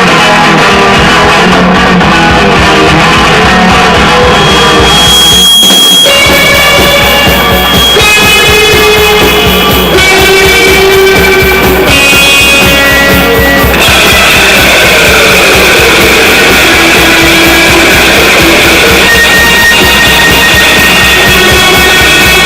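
Loud lo-fi rock band demo: distorted electric guitars over a drum kit. About six seconds in there is a short break, after which long sustained high guitar notes ring over the beat.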